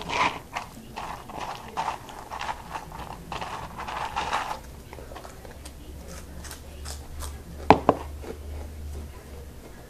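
Crunchy cheese snacks being crunched and chewed in irregular crackles for the first few seconds, then two sharp knocks in quick succession near the end.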